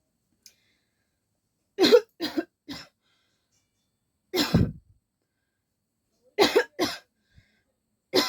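A person coughing in short separate bursts: three coughs close together about two seconds in, a single cough about halfway, two more near the end, and one last cough at the very end.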